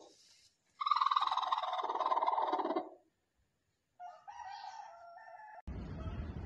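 Broody hen on her nest giving a long, loud squawk that falls slightly in pitch, in protest as a hand takes an egg from under her, then a quieter, lower grumbling call. A steady noise takes over near the end.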